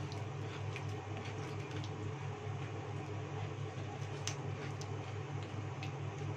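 A pestle grinding and scraping a wet chili and palm-sugar paste in a shallow cobek mortar, giving scattered light scrapes and clicks over a steady low hum.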